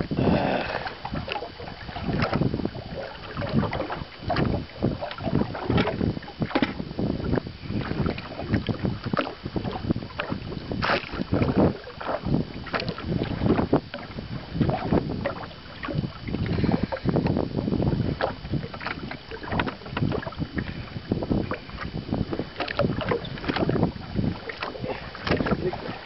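Water lapping and slapping against the side of a small fishing boat, with irregular knocks and splashes, and wind buffeting the microphone.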